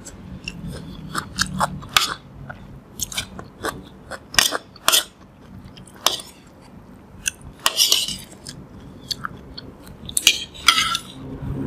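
A person eating rice with dried-fish kimchi, close to the microphone: chewing, with irregular sharp clinks of a metal spoon and fork against a ceramic bowl.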